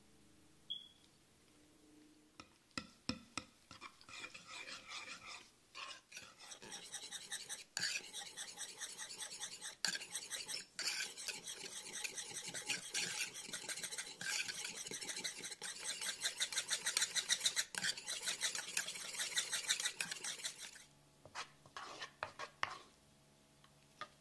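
A utensil stirring and beating a thick, creamy sauce in a wooden bowl, scraping against the wood in rapid, steady strokes. The stirring stops a few seconds before the end, followed by a few last strokes.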